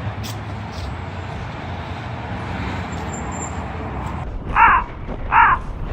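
Street traffic noise: a steady rumble of passing vehicles. Near the end, three short loud pitched beeps follow one another about three-quarters of a second apart.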